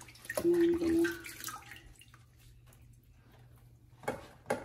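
Water splashing and dripping in a stainless steel sink as cooked lasagna noodles are lifted out of a pot of cold water, with a few sharp splashes near the end. A short low steady tone sounds about half a second in and is the loudest thing heard.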